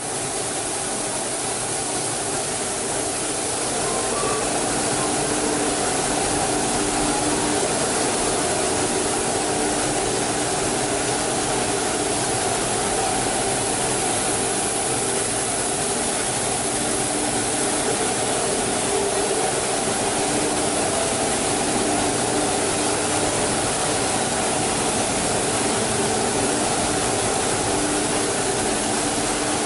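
Steady workshop machinery noise: a continuous even din with a faint hum under it, a little louder from about four seconds in.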